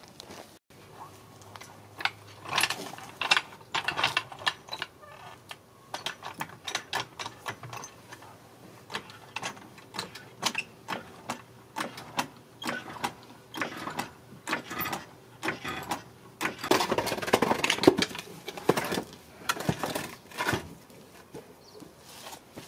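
Hydraulic floor jack being worked under a car to lift it: a run of irregular metallic clicks and knocks. Near the end comes a denser clatter of knocks as wooden blocks are set under the raised car.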